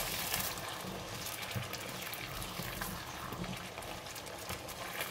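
Red curry sauce, just thinned with water, bubbling in a non-stick wok as a silicone spatula stirs Thai eggplants through it, with small wet splashes and ticks.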